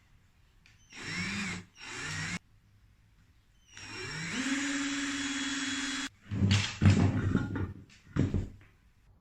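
An electric power tool's motor is triggered twice in short bursts, winding up in pitch each time. It then runs for about two seconds at a steady speed before cutting off. This is followed by about two seconds of rougher, irregular noisy bursts.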